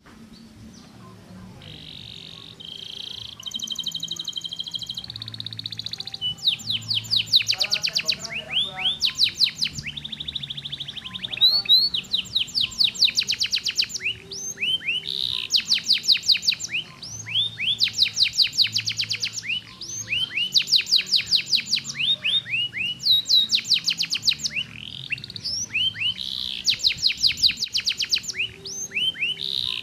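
Domestic canary singing: a few held whistled notes at the start, then long trills of quick rising notes, about ten a second, in runs broken by short pauses.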